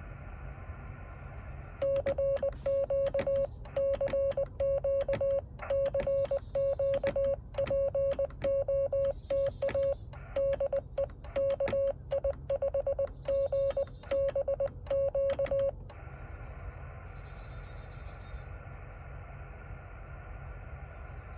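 Morse code keyed by hand on a Yaesu FT-817 transceiver: a steady beep of about 600 Hz broken into dots and dashes, with a sharp click at each element, lasting about fourteen seconds. When it stops, the radio's receiver hiss is left.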